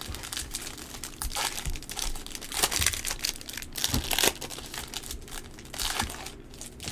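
Plastic wrappers of Panini Prizm football card packs crinkling in irregular bursts as hands handle and open them.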